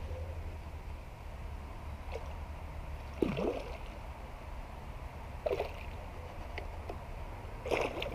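A hooked smallmouth bass splashing at the surface as it fights the line: three splashes about two seconds apart, the first the loudest, over a steady low rumble.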